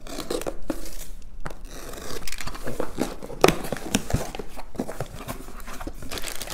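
A cardboard parcel being opened: a box cutter slitting the packing tape, the cardboard flaps pulled open, then plastic and bubble-wrap packing rustling as hands reach in. It comes as a string of short scrapes, taps and crinkles.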